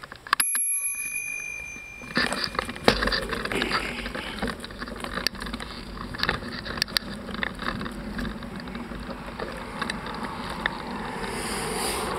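A bicycle bell rings once near the start, a single clear ring that fades away. Then the bicycle rolls off, a steady rumble with scattered clicks and rattles.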